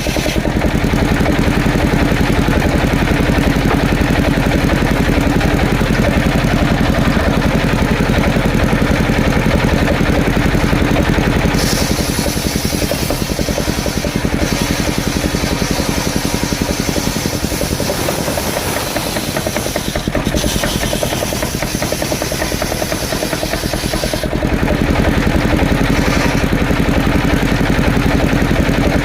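An engine running steadily with a fast, even pulse. From about twelve seconds in until about twenty-four seconds its sound changes, with a high hiss joining and the low pulse weakening.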